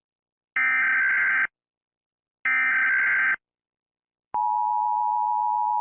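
Emergency Alert System SAME header tones: two short, buzzy digital data bursts about a second long and two seconds apart. About four seconds in, the steady two-tone EAS attention signal starts.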